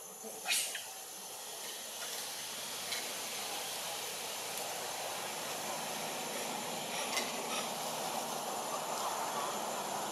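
Steady outdoor background hiss that swells gradually louder, with a sharp click about half a second in and a few faint ticks later.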